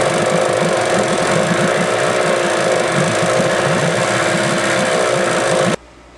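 Yamaha 8 hp outboard engine running steadily, its carburettor idle adjustment screw just turned out half a turn; the engine has a carburettor fault that keeps it from idling unless choked. The sound cuts off suddenly near the end.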